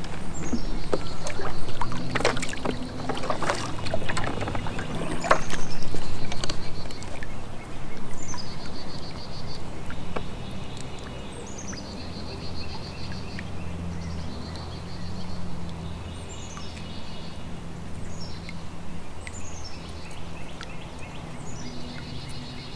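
A songbird singing the same short phrase over and over every few seconds, a quick run of falling notes ending in a buzzy trill. Over the first several seconds, knocks and clatter of a paddle and tackle being handled aboard a plastic fishing kayak.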